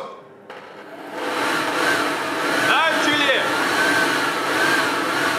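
Handheld leaf blower used as a wind machine, blowing at full power: a steady rushing noise that builds up about a second in, with a wavering motor pitch over it.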